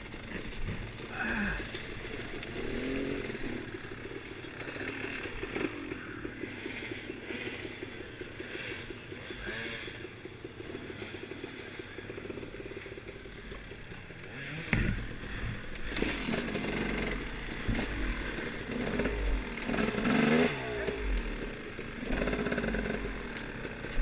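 Off-road dirt bike engine running under a varying throttle, its pitch rising and falling as it is ridden along a woods trail. Low thumps and buffeting come in over the second half.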